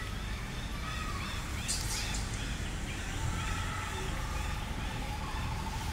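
Outdoor ambience: a steady low rumble with faint, short high chirps scattered through it and a thin wavering tone from about halfway on. There is a brief crackle about two seconds in.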